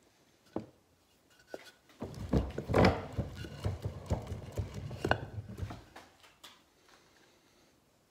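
A block of wood being handled against and clamped into a cast-iron bench vise: a few light clicks, then a run of knocks and clunks of wood and metal, loudest about three seconds in, thinning out to small clicks near the end.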